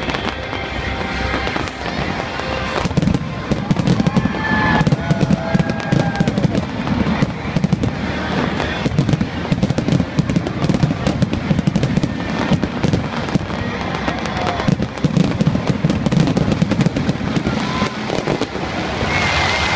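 Fireworks going off in a dense barrage: rapid overlapping bangs and crackling from many shells and comets, heaviest from about three seconds in until near the end.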